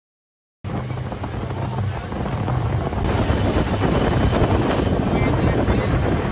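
Motorboat under way: its engine running with wind and water rush, starting suddenly about half a second in after silence and growing slightly louder.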